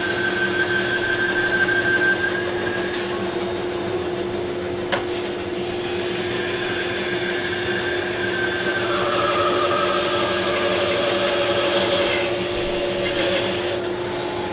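Small bandsaw cutting a circle out of a thick wooden bowl blank, with the saw's steady motor hum and the dust collector's rushing air underneath. The cutting sound changes pitch several times as the blank is turned through the curve, and there is a single sharp click about five seconds in.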